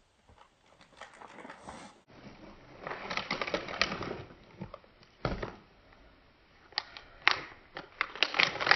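Plastic packaging crinkling and rustling in irregular bursts of small clicks and crackles as it is handled and opened.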